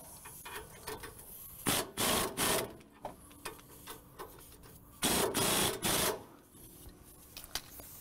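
Pneumatic wrench on an air hose run in short trigger bursts, three quick ones about two seconds in and two longer ones around five seconds, tightening the tie-rod adjusting sleeve clamp nuts after a toe adjustment.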